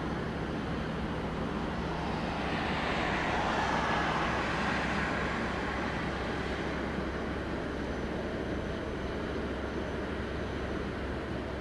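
A car passing on the road, its tyre and engine noise swelling about three to five seconds in and then fading, over a steady low rumble.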